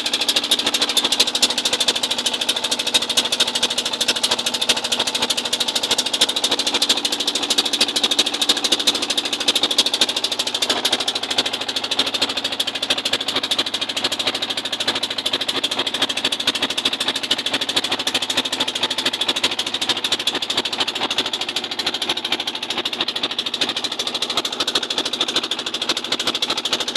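Small engine of a fishing boat running steadily under way, a fast, even chugging.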